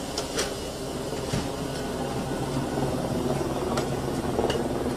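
Emergency vehicle engine idling, a steady low hum, with a few sharp clicks and knocks from equipment being handled.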